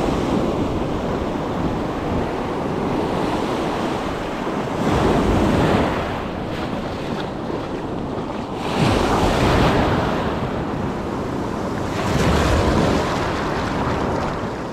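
Ocean surf breaking and washing up the sand, swelling louder three times as successive waves come in, with wind buffeting the microphone.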